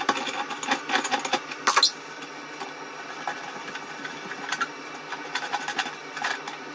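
Large plastic siphon back nut under a toilet cistern being unscrewed by hand: a rapid run of clicks and scrapes from the plastic thread for about two seconds, then scattered single clicks.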